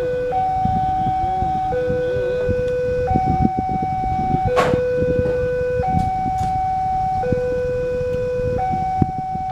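Level crossing warning alarm sounding a two-tone signal, a higher and a lower tone alternating about every second and a half, warning that a train is approaching. A low rumble sits underneath, and there is a sharp click about halfway through.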